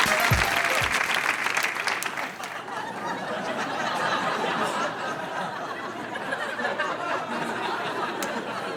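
Studio audience applauding, with some laughter, as the band's music stops about a second in. The applause then carries on at a steady level.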